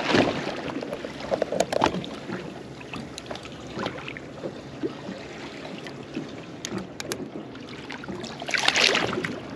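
Water sloshing against a boat hull, with scattered sharp clicks and knocks. About eight and a half seconds in comes a louder splash as a hooked shark thrashes at the surface.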